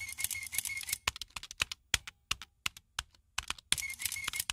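Rapid, irregular clicking in dense bursts separated by short pauses, like fast typing on a keyboard, with a faint high tone under the thickest bursts.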